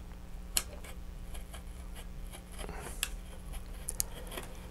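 Hobby knife blade cutting slowly through a thin plastic model-rocket fairing, a faint scratching broken by three sharp clicks as the blade catches and snaps through the plastic.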